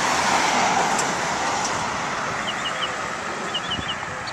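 Fire engine driving past, its engine and tyre noise loudest in the first second, dropping slightly in pitch and fading as it pulls away; no siren. A small bird chirps in short quick runs from about halfway through.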